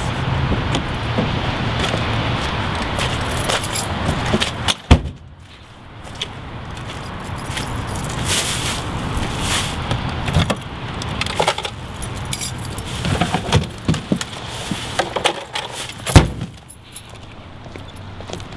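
Keys jangling and clinking over a steady rumbling background, with a sharp loud thump about five seconds in and another about sixteen seconds in.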